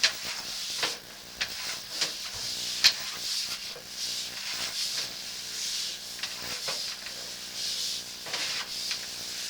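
Sewer inspection camera's push cable being fed by hand into a drain line: uneven rubbing and hissing that surges roughly once a second, with sharp clicks along the way.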